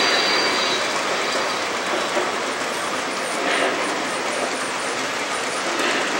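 O scale model freight cars rolling steadily over the layout's track: a continuous rolling rumble with clicks from the rail joints and brief, higher squeals about halfway through and near the end.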